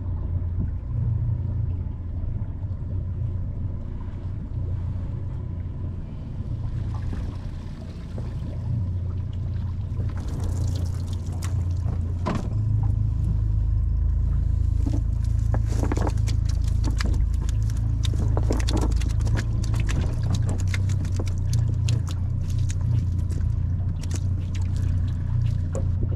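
Cast net being hauled in and emptied onto a boat deck: water pours and drips off the net from about ten seconds in, followed by a dense run of small clicks and taps on the deck, all over a steady low rumble.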